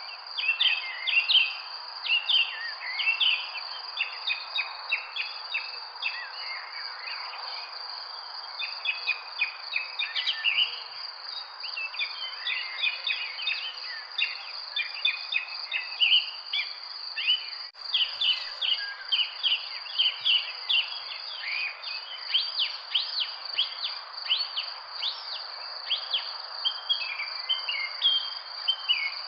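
Many small birds chirping in quick, repeated notes over a steady, high, continuous insect trill, with a soft background hiss.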